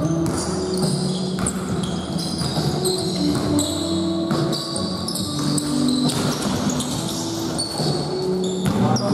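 Indoor court ball game: a ball bouncing repeatedly and shoes squeaking briefly on the court floor.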